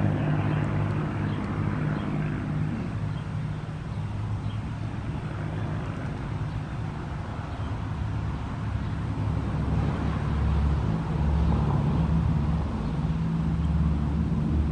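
Propeller airplane engine droning low and steady, growing louder about two-thirds of the way through as the plane comes closer.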